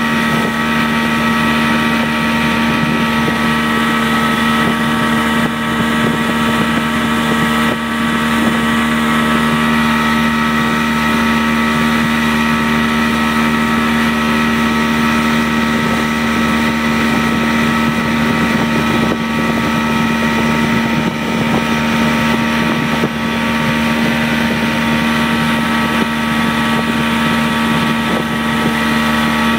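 Motorboat engine running steadily at an unchanging speed, towing a banana boat: a constant hum with a strong low tone and its overtones over a steady rush of noise.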